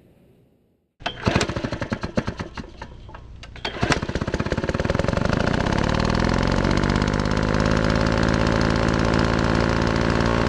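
An engine starts about a second in with a rapid, uneven string of pops, then runs steadily with a fast, even pulse.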